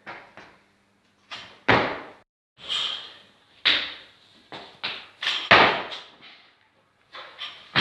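Loaded barbell with iron plates clanking and thudding during jerks from racks, with feet landing on the platform: about a dozen sharp, irregular knocks and clanks, one ringing briefly.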